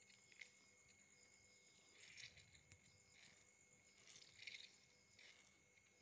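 Faint wet squelches from a whole pomegranate being squeezed by hand, juice squirting out through a cut hole in the rind and spattering into a glass, about five times.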